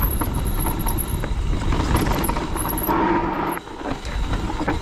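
Mountain bike descending a rocky dirt trail: a steady rumble of wind and tyres on dirt and stones, with scattered clicks and knocks as the bike rattles over bumps.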